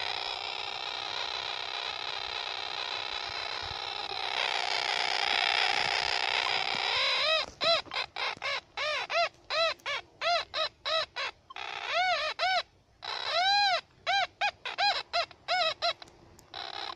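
Fisher F44 metal detector with a Magic Lab 13-inch DD coil, in all-metal mode, squealing like a half-dead mosquito. It gives a continuous warbling buzz for about seven seconds, then a string of short up-and-down chirps about two a second, with a brief break in the middle, and ends on a short steady tone. These are false signals, which the owner put down to interference from a nearby Minelab Equinox 800.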